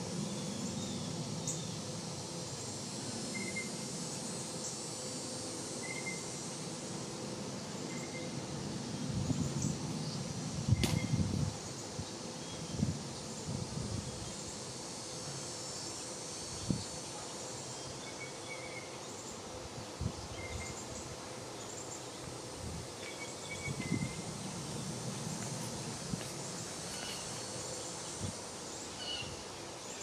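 Outdoor summer ambience: a steady high hum of insects with short bird chirps now and then. A few low thumps, the loudest cluster about a third of the way in with a sharp click among them.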